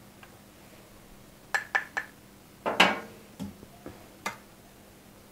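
A handful of light clicks and clinks of a spoon and small glass dishes against a glass mixing bowl as ingredients are added. The loudest is a glassy clink about three seconds in with a short ring; the rest are quieter taps.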